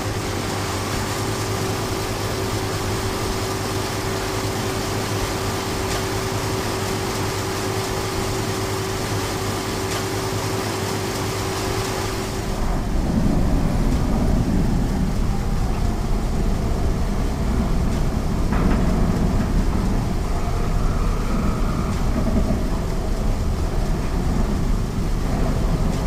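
Steady machinery hum with a constant tone. About halfway through it gives way abruptly to a louder, deeper rumble.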